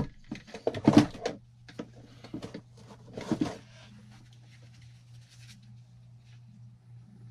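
Tools and parts being handled: a sharp knock at the start, then scattered light clicks and clatter for about three and a half seconds, then only a faint steady low hum.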